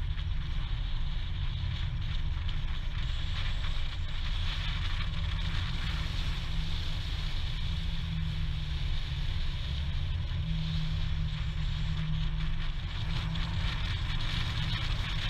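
Steady rumble of a vehicle in motion, with wind buffeting the microphone.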